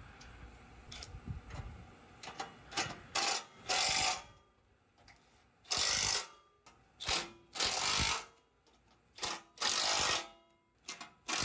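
Hand ratchet wrench tightening bolts: a series of about eight short clicking bursts at uneven intervals, one for each swing of the handle.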